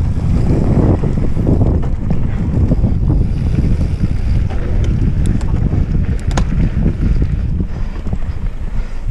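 Wind buffeting the microphone of a handlebar-mounted camera on a mountain bike descending a dirt singletrack, over the rumble of the tyres on the trail. A few short sharp clicks come a little past halfway.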